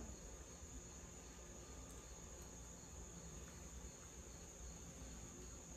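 Near silence with a faint, steady high-pitched chirring of insects, like crickets, over quiet room tone.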